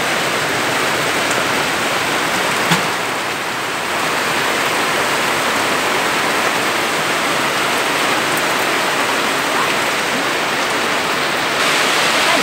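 Heavy tropical downpour: a dense, steady hiss of rain pelting flooded ground and standing water, growing a little louder near the end.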